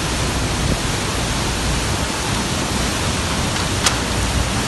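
Typhoon-force wind and driving rain: a loud, dense, steady rush of noise, with one sharp click about four seconds in.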